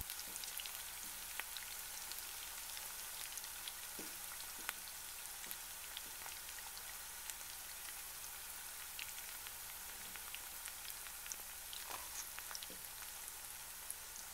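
Chopped onions, curry leaves and green chillies sizzling faintly in hot oil in a frying pan: a steady hiss with scattered small pops and crackles.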